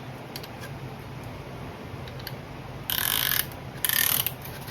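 Piston ring compressor being ratcheted tight around a piston's rings: two short bursts of rapid ratchet clicking in the second half.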